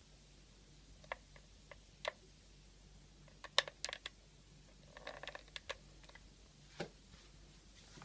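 SMC ceiling fan's rotary wall speed regulator being turned by hand, its knob clicking through the speed steps: a few single clicks, then a quick cluster of clicks past the middle, a rattling run of small clicks, and one more click near the end.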